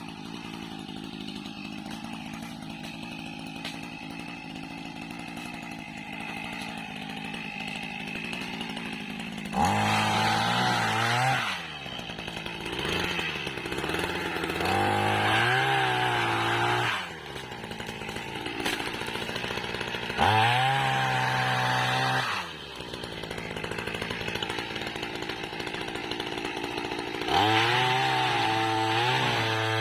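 Small two-stroke engine of a motorized oil palm pole pruner idling steadily, then revved hard four times for a few seconds each, its pitch wavering while it cuts palm fronds.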